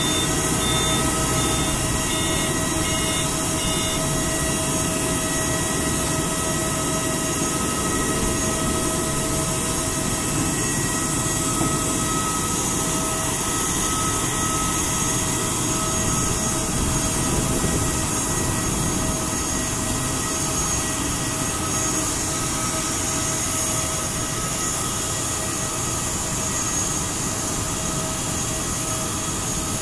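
Steady jet whine over a broad rumble from an Airbus A320 during pushback by a tow tug, holding an even level throughout. A rapid series of short beeps sounds over it for the first few seconds.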